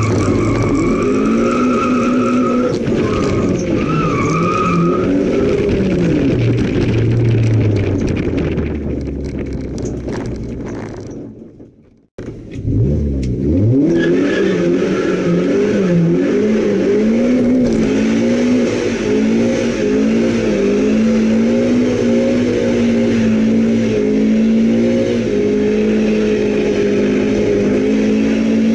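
Rear-wheel-drive Suzuki autoslalom car heard from inside the cabin, its engine revving up and dropping back again and again as it is driven hard through the course, with high tyre squeal in the first few seconds. About twelve seconds in the sound fades out and cuts to silence for a moment, then the revving picks up again, with a short squeal.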